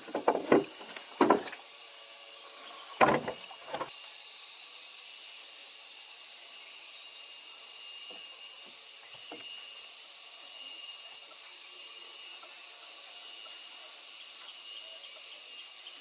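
Five sharp knocks in the first four seconds, then a steady high-pitched hiss of outdoor background with faint thin tones above it.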